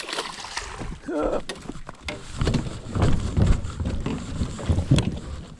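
Hollow thumps, knocks and rumbling from someone moving quickly across a plastic floating pontoon, with handling noise on the camera, heaviest in the middle of the stretch and stopping near the end.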